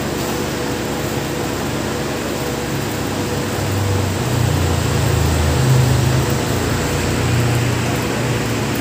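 Steady mechanical hum and hiss with a low rumble that swells about four seconds in and eases near the end.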